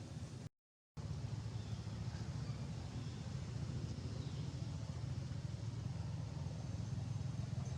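Steady low outdoor rumble, broken by a brief total dropout to silence about half a second in.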